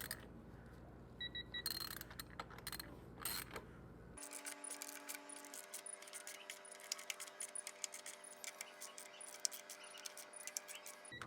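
Faint, irregular small metallic clicks of a ratcheting torque wrench and socket working the bolts of a plastic pump manifold, being tightened to 4 pounds.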